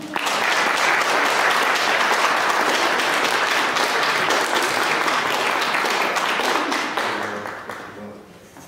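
Audience applauding: dense clapping that starts at once, holds steady, then dies away over the last second or two.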